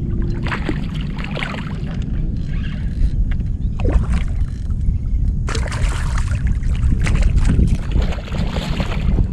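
Water sloshing and splashing against a kayak in irregular surges, over a steady low rumble of wind on the microphone.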